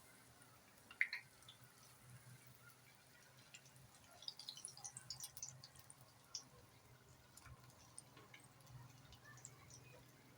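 Faint, sparse popping and crackling of corn dogs deep-frying in oil that is not very hot, with a denser cluster of pops about four to six seconds in and a single light click about a second in.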